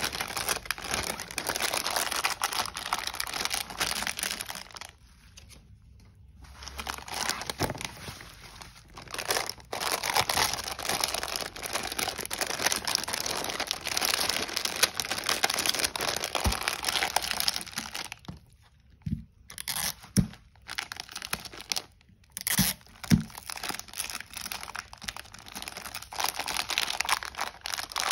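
Clear plastic bag crinkling and rustling in the hands as a spiral-bound notebook is slid into it and handled. There are two brief lulls, and a few sharp clicks in the second half.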